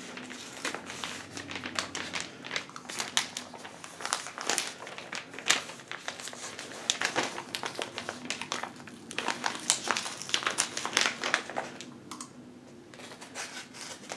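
Paper crinkling and rustling in a dense run of sharp crackles as a tightly packed paper mailing envelope is worked open by hand. The crackles thin out for about the last two seconds.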